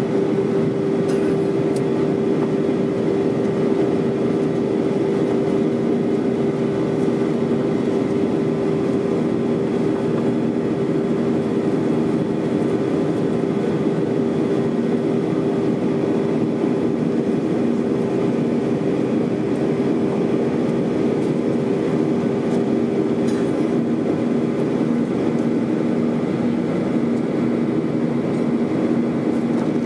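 Jet airliner cabin noise during the climb after takeoff: the turbofan engines running steadily under a rushing hum, with two steady low tones, heard from inside the cabin beside the wing.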